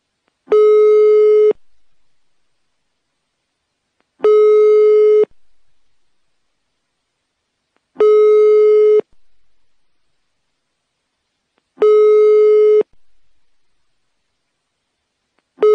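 Telephone ringback tone heard down the line by the caller: a steady single-pitched tone about a second long, repeating every three to four seconds, while the dialled phone rings unanswered.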